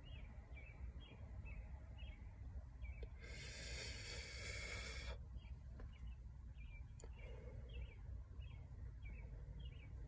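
A long exhale of vape vapour after a hit from a cannabis vape cartridge: a breathy hiss of about two seconds, starting about three seconds in. Faint high chirps repeat about twice a second throughout, over a steady low rumble.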